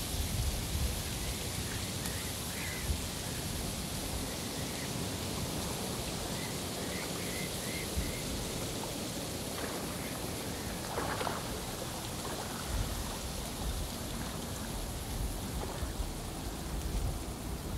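Steady rain-like hiss with a low rumble, part of an experimental electronic track. The rumble thins out for a while and comes back about two-thirds of the way in, and a few faint short chirps show through the hiss.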